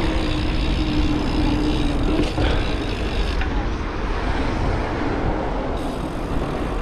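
Wind rumbling on the microphone and road noise during a mountain-bike ride, with a steady hum for the first two seconds or so.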